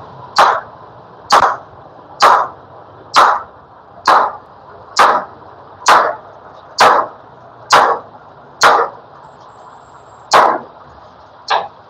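Hammer blows struck at an even pace, about one a second, each with a short ringing tail. There is a brief pause near the end before the blows resume.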